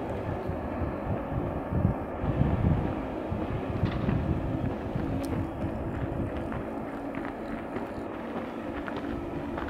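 Wind buffeting the microphone in irregular gusts, strongest in the first few seconds, over a steady low mechanical hum.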